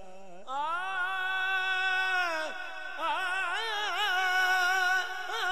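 Solo male voice singing a naat in long drawn-out notes without words: a note that glides up about half a second in and is held, then breaks off, and a second phrase about three seconds in with wavering, ornamented turns.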